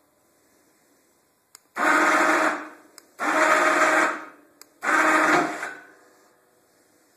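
Small electric winch on a golf cart's plow mount running in three short bursts of about a second each, moving the plow blade on its cable. A faint click comes just before each burst.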